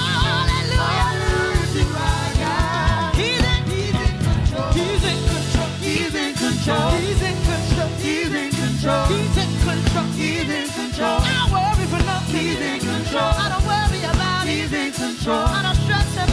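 Live gospel praise-and-worship music: several singers with a lead voice over a band with a drum kit, keeping a steady beat.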